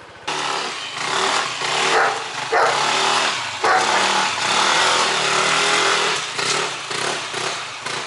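Small motor scooter's engine running and revving, its pitch rising and falling several times as it is ridden off.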